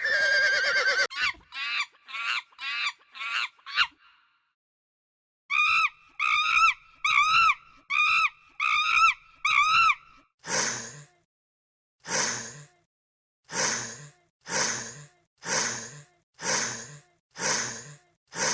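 A series of recorded animal calls: a horse's whinny trailing off with quick pulses, then a run of pitched calls about two a second, then harsh calls about once a second.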